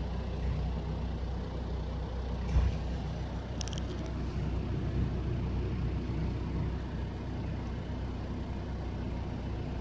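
Toyota 14B 3.7-litre four-cylinder diesel idling steadily, heard from inside the cab with the air-conditioning compressor engaged and the blower running. A single thump comes about two and a half seconds in, followed shortly by a brief high click.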